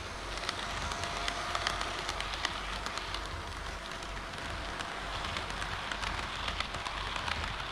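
HO scale model trains running on the layout track: a steady rolling hiss of metal wheels on rail with many irregular sharp clicks as the wheels cross rail joints and turnouts.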